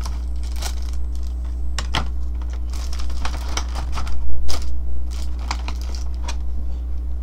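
Clear plastic blister packaging and small action-figure parts being handled: scattered clicks, rattles and crinkles of thin plastic, loudest a little past the middle, over a steady low hum.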